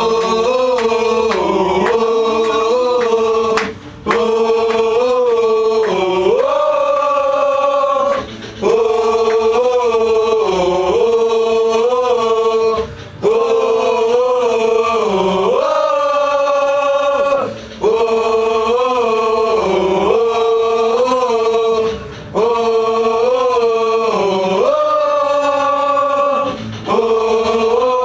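Gang vocals for a pop-punk song: a group of men singing the same short line together in unison, over and over, about six times, each line lasting roughly four seconds with a brief break between.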